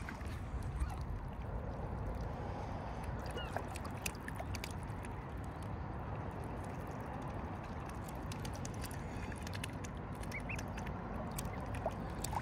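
Mute swan cygnets giving a few short, high rising peeps, over a steady low rushing background.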